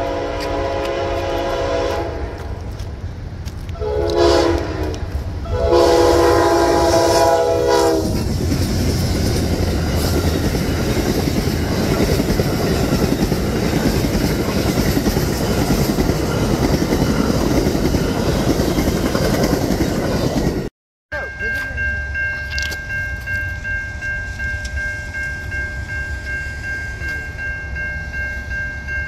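Amtrak passenger train's locomotive horn sounding the end of the grade-crossing signal: a long blast, a short one, then a long one. The train then passes with a steady roar of wheels and cars. After a sudden break, the crossing signal's bell rings steadily as the train's rumble fades.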